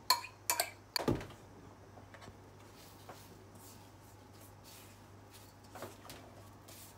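A glass bowl clinks and knocks against a stainless-steel bowl a few times in the first second or so, with one duller thump. Then a spatula scrapes faintly as it mixes grated daikon, chopped scallions and flour in a stainless-steel bowl.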